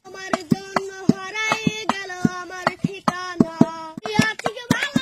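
A young voice singing long held notes over rhythmic hand-clapping from a small group, about three claps a second.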